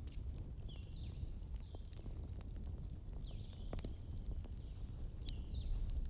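Wood fire burning in a fireplace: a steady low rumble with scattered crackles and pops. A few short, high chirping tones sound over it, one a little longer near the middle.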